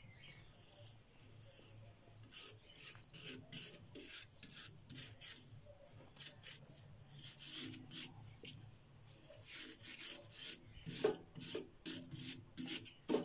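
Rusty metal flower stand being sanded by hand: short back-and-forth rubbing strokes, about two a second, that get louder from about eleven seconds in.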